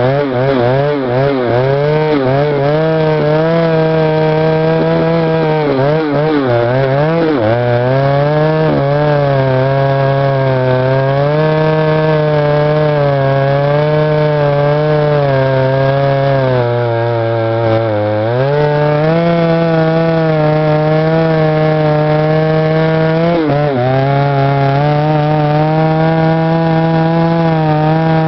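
Stihl 076 AVEQ vintage 111cc two-stroke chainsaw running hard while cutting through old wood. The engine note wavers and drops several times as the chain is loaded in the cut, most deeply about seventeen seconds in, and recovers to a steady high pitch in between.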